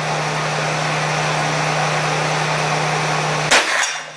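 A steady hum, then one loud gunshot about three and a half seconds in, with a short tail after it.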